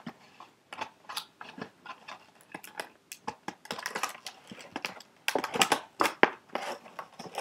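Packaging being pried and torn open by hand to free a part: irregular clicks, snaps and crinkles, busier and louder in the second half.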